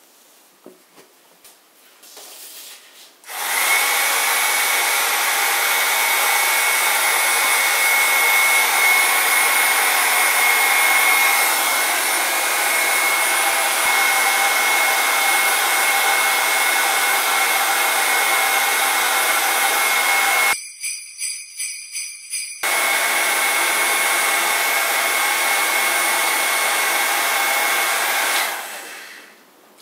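Black & Decker heat gun blowing steadily, its fan giving an even high whine over the rush of air. It starts about three seconds in and stops near the end, with a short choppy break about two-thirds of the way through.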